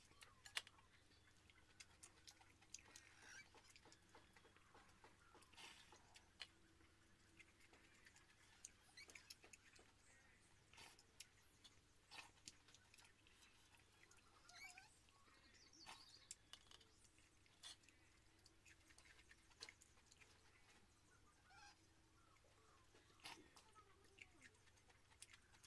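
Faint sounds of eating watered rice by hand: chewing and mouth sounds, with scattered soft clicks.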